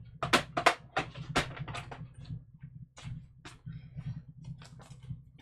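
Craft tools and card pieces being handled and set down on a work surface: a quick run of clicks and knocks, loudest in the first second and a half, then lighter taps. A steady low hum runs underneath.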